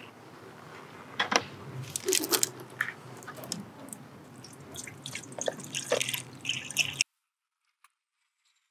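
Coolant mix glugging and splashing as it is poured from a plastic jug through a plastic funnel into the car's coolant expansion tank, with irregular clicks and crinkles from the jug. This is the cooling system being refilled. The sound cuts off suddenly about seven seconds in.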